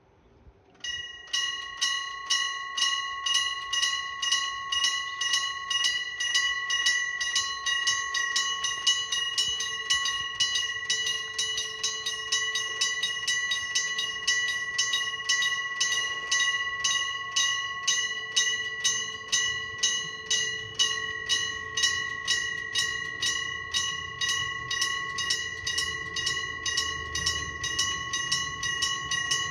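Japanese electric-bell level-crossing warning bell (電鈴式踏切) ringing continuously with a rapid, even clatter of strikes. It starts about a second in. A low rumble builds underneath near the end.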